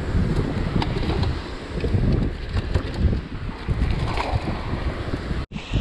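Wind buffeting the microphone in a low, gusty rumble over the wash of surf on the beach. The sound cuts out for an instant near the end.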